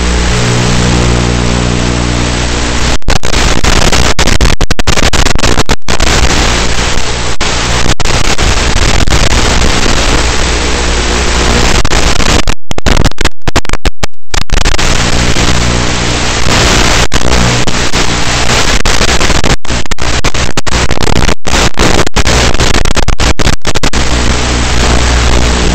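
Onboard audio from a fixed-wing RC airplane in flight: loud rushing wind noise and hiss with the motor's steady hum coming and going, cut by many brief dropouts, several of them near the middle.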